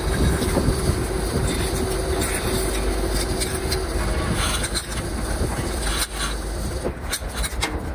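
Steel lifting chain clinking and rattling as it is handled and wrapped, with sharp metal clicks coming thickest in the second half, over a steady low mechanical rumble.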